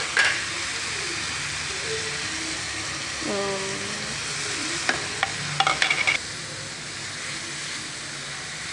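Oil sizzling in a metal kadhai as chopped tomatoes, prawns and spice powders are stirred together with a spatula. A quick run of clicks and scrapes of the spatula against the pan comes about five to six seconds in, after which the sizzle gets quieter.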